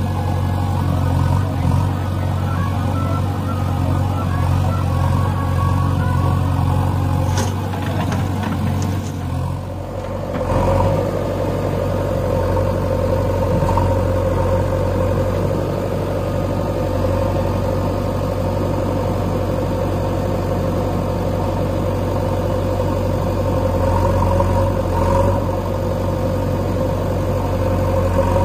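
Diesel engines of a JCB backhoe loader and a John Deere 5050D tractor running steadily under work. About ten seconds in, the sound dips briefly and then settles into a steadier, higher hum.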